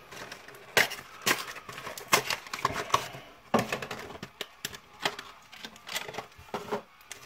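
Hands unwrapping a trading-card Special Edition box: clear plastic wrap crinkles and the cardboard rustles in a quick, irregular string of crackles.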